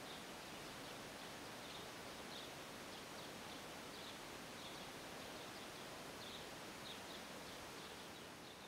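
Faint, short bird chirps repeating irregularly, about one or two a second, over a steady hiss of background noise.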